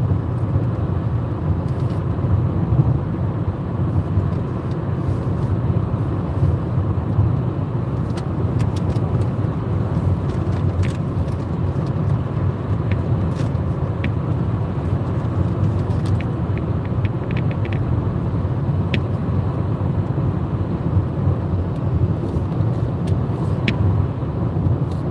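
Steady road noise of a moving car heard from inside the cabin: a low, even rumble of tyres and engine, with a few faint clicks in the middle stretch.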